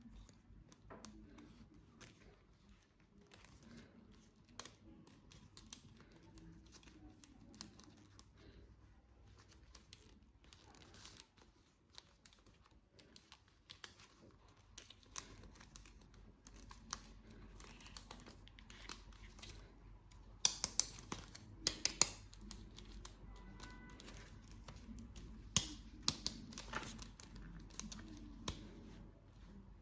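Toy packaging being handled and opened by hand: plastic and paper crinkling and tearing, with scattered small clicks and taps. A quick run of sharper clicks comes about two-thirds of the way in, and another shortly after.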